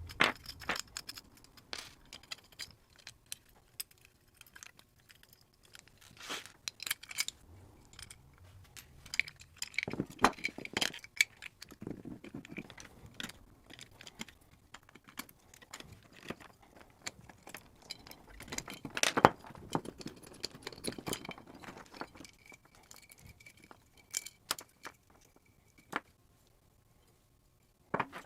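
Metal parts of a Boss FZ-1W fuzz pedal clinking and clicking as it is taken apart by hand, with scattered sharp taps and a couple of louder knocks.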